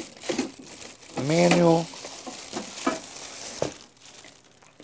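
Packaging rustling and crinkling as parts are lifted out of a cardboard shipping box, with a few light knocks.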